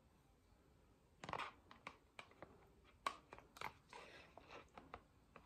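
Faint clicks and scrapes of a metal spoon against a plastic takeout container as stewed beef tripe in tomato sauce is scooped out, with soft wet plops of the food. The strongest clicks come about a second in and again about three seconds in.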